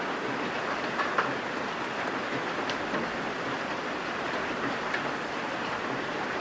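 Heavy rain pouring steadily in a sudden downpour, with a few sharper taps of drops striking the window glass.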